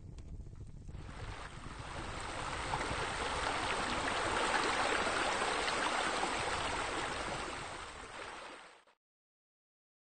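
Rushing water: a steady rush that swells in over a couple of seconds, is loudest around the middle, then fades and cuts off abruptly about nine seconds in.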